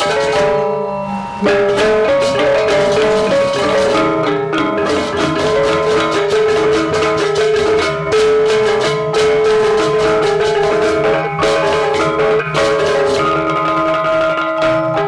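Gamelan music: ringing tuned metal percussion over drums, struck in a fast, dense rhythm.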